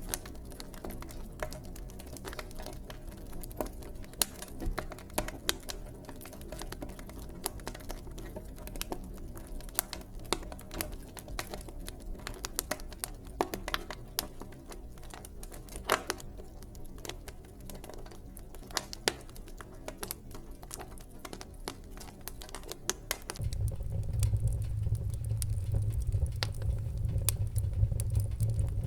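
Wood fire in a fireplace crackling, with many irregular sharp pops and snaps. About two-thirds of the way through, a louder, steady low rumble joins the crackling.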